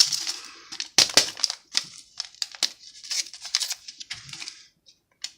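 Crinkling, crackling and tearing of an MRE's instant coffee packet as it is handled and worked open, with sharp crackles about a second in.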